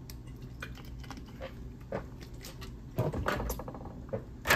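Light clicks, taps and rustling of small packaged items being handled on a table, likely the wax-paper-wrapped incense sticks being picked up. A louder burst comes about three seconds in, then a sharp click near the end.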